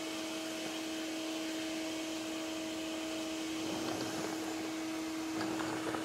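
RIDGID HD1400 14-gallon NXT wet/dry shop vac running in blower mode through its hose and wands: a steady rush of air over a constant motor hum.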